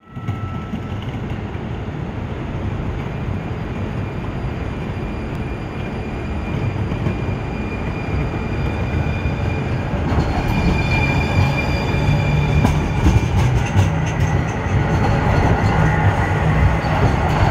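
Two coupled Siemens S70 light rail trains, one towing the other, rolling slowly closer, their low running rumble growing steadily louder. A thin high-pitched whine joins about ten seconds in.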